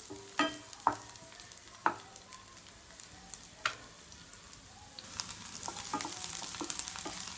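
Sliced onions frying in hot ghee in a pan: a steady sizzle, with a few sharp knocks of a wooden spatula against the pan in the first four seconds. About five seconds in the sizzle grows louder and crackly. The onions are being fried to light brown.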